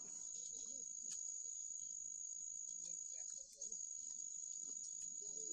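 Insects in the woods trilling in one steady, continuous high note, with a brief break about three and a half seconds in; faint voices murmur underneath.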